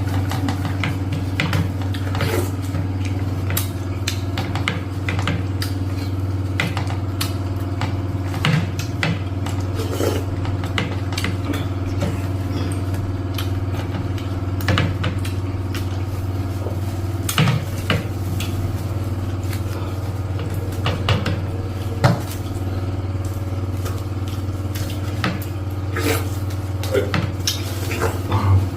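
A steady low machine hum, like an idling engine, runs throughout under frequent short clinks and knocks of dishes and bowls as food is eaten.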